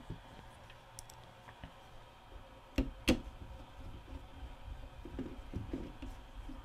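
Small clicks and handling noise of a VCR loading motor's plastic gear housing being fitted by hand onto the metal tape-deck chassis, with two sharp clicks about three seconds in.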